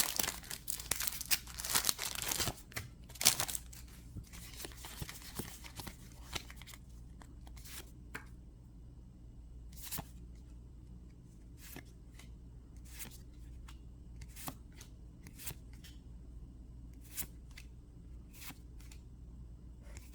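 Pokémon booster pack's foil wrapper crinkling and being torn open for the first several seconds. After that the cards are flicked through one at a time, a soft short flick about once a second.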